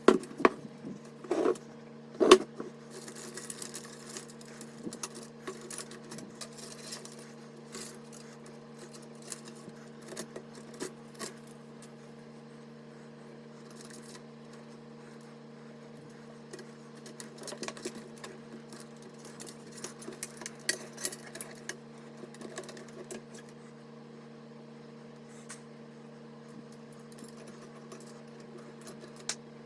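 PC parts being handled during assembly: scattered clicks, taps and light rubbing of plastic and metal components, with three louder knocks in the first couple of seconds, over a steady low hum.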